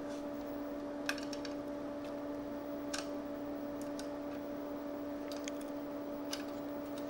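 Powered-up Atari 1050 floppy drive giving a steady hum, with a few scattered light clicks.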